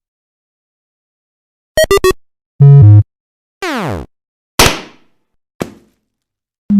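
A string of short electronic 'fail' sound effects with gaps between them: three quick beeps, a low two-note buzzer dropping in pitch, a long falling glide, then two sharp hits that die away.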